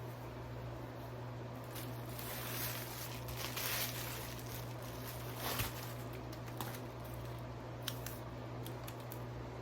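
Product packaging being handled and opened: a stretch of rustling and crinkling, then a single knock and a few small clicks.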